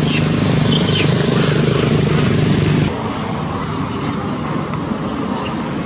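An engine running steadily with a low hum, cutting off abruptly about three seconds in and leaving quieter, even background noise. A few brief high chirps come in the first second.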